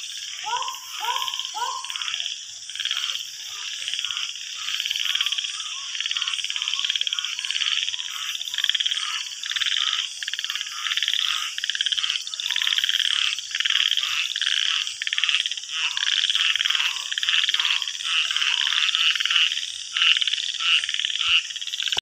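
Night chorus of frogs calling over and over in many short repeated notes, with a few falling calls near the start and a steady high drone beneath.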